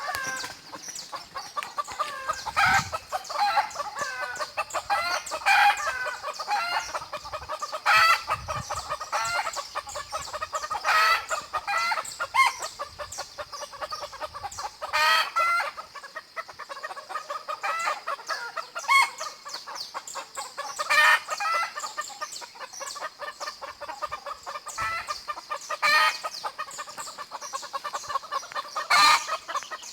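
Chickens clucking and a rooster crowing, over small songbirds chirping and warbling. Loud, sharp calls stand out every two to four seconds.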